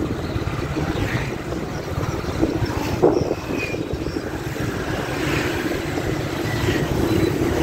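Motorcycle engine running steadily while riding along a street, with wind rushing over the microphone. There is a brief knock about three seconds in.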